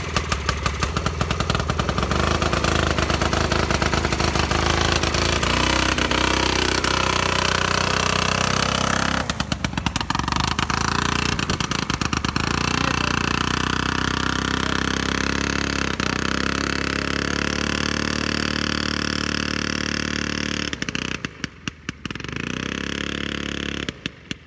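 Homemade aerosled's single-cylinder two-stroke IZh Planeta motorcycle engine running hard and driving its propeller. Its pitch rises a few seconds in as it revs up, and the sound dips briefly twice near the end.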